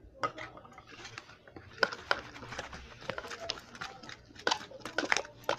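Glue slime being mixed with boric-acid activator as it starts to form: irregular sticky clicks and squelches.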